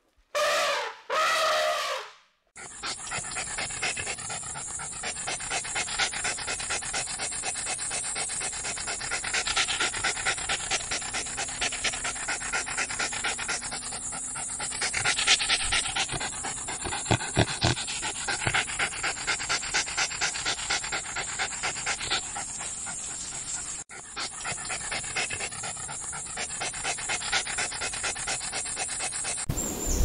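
A Pembroke Welsh corgi panting fast and steadily with its mouth open and tongue out. Before that, in the first two seconds, an elephant trumpets twice.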